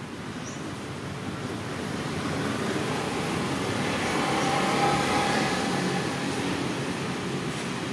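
A road vehicle passing by: a steady rushing noise that swells to its loudest about five seconds in and then fades.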